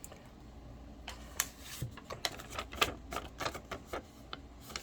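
Irregular light clicks and taps of a plastic item and its packaging being handled.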